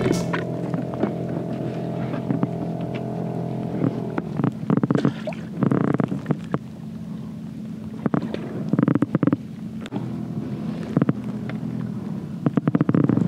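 A boat engine runs steadily as a low hum, louder for the first few seconds. Over it come several short bursts of rustling and knocking as gear is handled on a fishing kayak.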